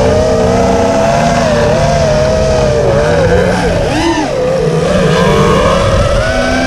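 FPV quadcopter's motors and propellers whining, the pitch rising and falling with throttle changes, with a quick swell about four seconds in. Underneath runs the lower, steadier drone of the Extra 330LT's engine.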